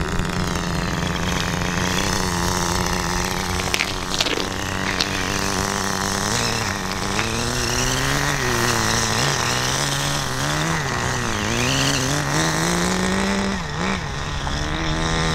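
Small glow-fuel (nitro) engine of a 1/10-scale RC touring car running during break-in, with its fuel needle just turned in slightly after stalling from too rich a mixture. The note holds steady for the first six seconds or so, then rises and falls over and over as the throttle is worked.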